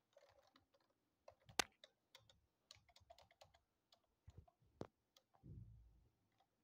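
Faint, scattered computer keyboard keystrokes, with a sharper click about a second and a half in and another near five seconds, and a soft low rumble shortly before the end.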